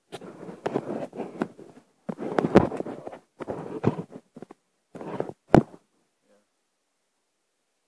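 Bursts of rubbing and scraping handling noise with scattered clicks, then a sharp knock a little over five seconds in.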